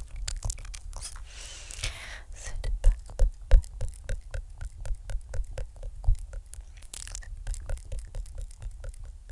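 Close-up mouth sounds: quick, irregular wet clicks and smacks, several a second, with a short breathy hiss about a second and a half in and a couple of stronger knocks around three seconds in.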